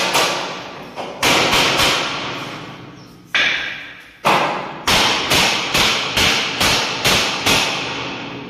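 Hammering or knocking on a window frame being fitted: about a dozen sharp knocks at uneven intervals, coming faster in the second half, each ringing on in the bare, empty room.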